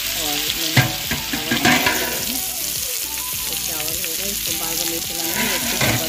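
Small potatoes frying in hot oil in a kadhai, a steady sizzle, with a few sharp knocks of the stirring utensil against the pan about a second in and again near the end.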